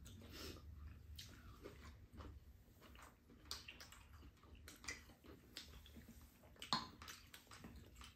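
Faint eating sounds: people chewing a meal, with scattered light clicks of a spoon and chopsticks against bowls. The sharpest click comes a little under seven seconds in.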